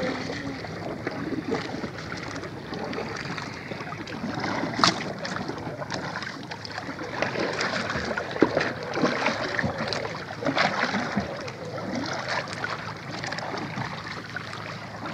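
Water lapping and splashing against a small wooden outrigger canoe's hull, with a few sharp knocks on the boat, the loudest about 5 and 8 seconds in.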